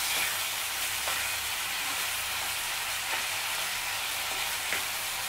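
Chopped tomatoes frying in a nonstick pan with a steady sizzle while a wooden spatula stirs them, giving a few light scrapes and taps against the pan.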